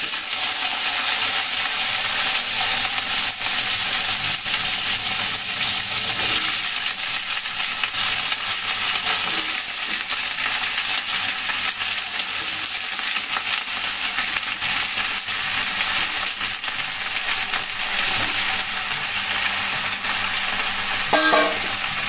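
Cut brinjal and potato pieces frying in hot mustard oil with whole cumin seeds in a steel wok. The sizzle starts suddenly as the vegetables go into the oil and then keeps on as a steady, even crackling.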